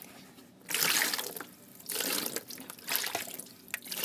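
Water poured from a cup over hands, splashing in several separate pours about a second apart.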